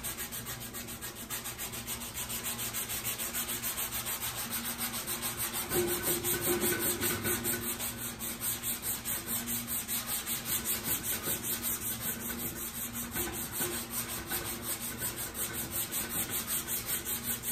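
Hard sanding block with sandpaper being rubbed by hand over metal glaze putty on a primed steel motorcycle fuel tank: a steady rasping rhythm of back-and-forth strokes, about three a second. The block is taking the putty down over a filled dent until only the low spot stays filled.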